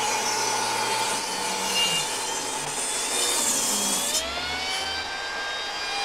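Table saw ripping a 2x4 lengthwise: the blade cuts through the wood over the steady whine of the motor. About four seconds in the cut ends, and the motor's pitch rises as the blade runs free.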